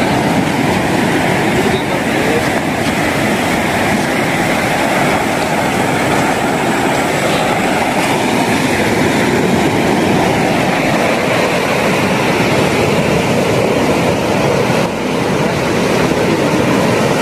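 Sea surf breaking and washing up a sandy shore: a loud, steady rush of waves.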